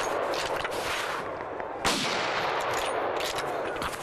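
Rifle shots from a .300 Winchester-calibre hunting rifle: one about two seconds in and another just at the end, each followed by a long echo that fades slowly and fills the gaps between shots.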